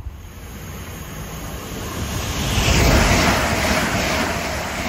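A Heathrow Express train of two coupled Class 387 electric units passing through the station at speed without stopping: a rushing of air and wheels on rail with a low rumble. It builds to its loudest about three seconds in.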